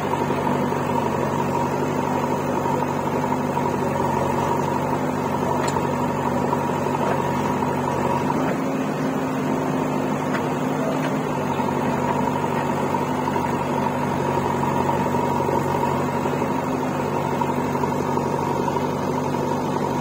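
Diesel engines of a JCB 3DX backhoe loader and a tractor running steadily, an even droning hum that holds the same pitch and level throughout.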